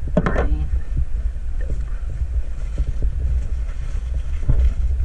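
Wind buffeting the microphone, a steady low rumble, with a short rustle about a quarter second in and a few light knocks, one of them near the end.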